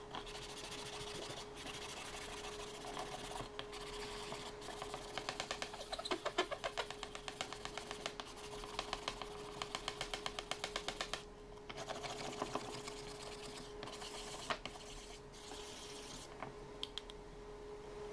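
Sandpaper rubbed fast back and forth by hand over a wooden clock counterweight box, a rapid run of scratchy strokes that is densest in the middle and eases off near the end.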